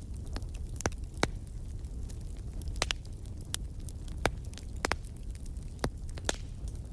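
Wood fire burning in a fireplace: irregular sharp crackles and pops, a dozen or so, over a steady low rumble.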